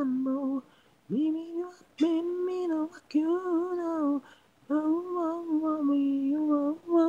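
Isolated solo lead vocal with no instruments: one voice singing several held phrases, some sliding up into the note, with short breaks between them.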